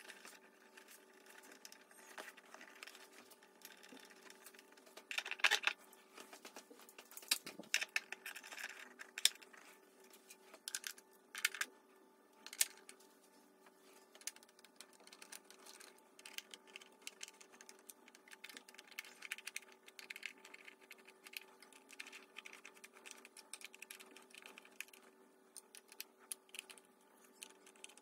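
Irregular light clicks, taps and rattles of hard plastic and metal parts being handled in a Triumph Daytona 675's open airbox. A few louder knocks come around five to thirteen seconds in, over a faint steady hum.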